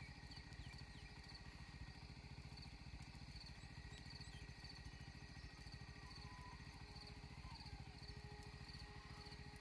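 Faint ambience of scrubland: insects chirping in short, high pulses repeated about twice a second over a low fluttering rumble, with a faint call near the end.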